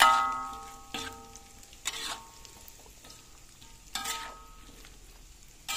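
Metal spoon stirring tempeh and carrots in a metal wok, striking the pan about five times, roughly once a second with a pause in the middle; each strike leaves the wok ringing briefly, the first strike the loudest. Faint sizzling of the frying food runs under the strikes.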